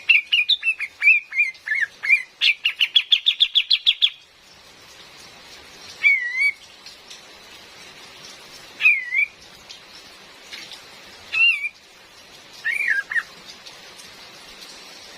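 Female kapas tembak bird calling: a chattering string of quick rising-and-falling notes, then a fast run of about a dozen rapid notes, then four single slurred calls a few seconds apart. A steady hiss of rain runs underneath.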